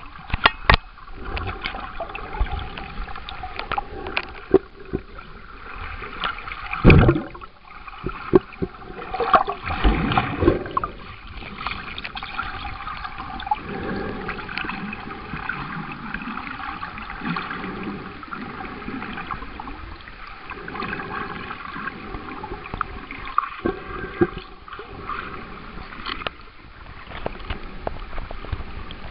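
Water heard through a camera held underwater: a muffled, steady wash with gurgles and many scattered clicks and knocks. Two louder thumps come about seven and ten seconds in.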